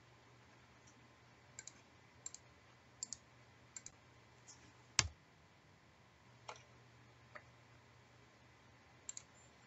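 Scattered computer mouse clicks, several in quick pairs, with one louder click about five seconds in, over a faint low hum.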